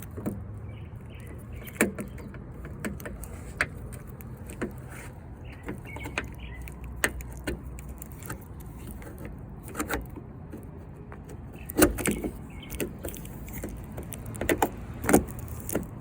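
Scattered clicks and knocks of a car door handle assembly and its parts being handled and fitted, over a steady low hum. Two louder clunks come in the last third.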